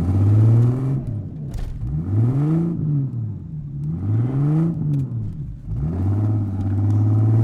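Jeep engine revving up and falling back twice in the middle, between steadier running at the start and near the end, while towing a snow tube through snow.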